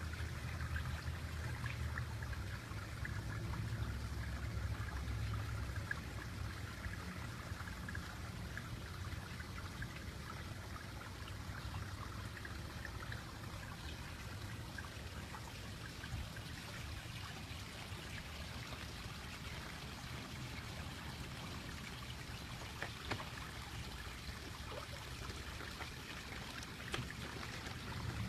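Pond water trickling and splashing steadily, with a low rumble that is strongest in the first few seconds.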